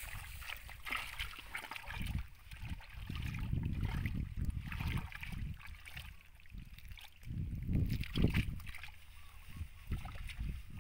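Muddy water sloshing and splashing as someone wades and works by hand in a flooded mud hole, in irregular low surges with small wet clicks.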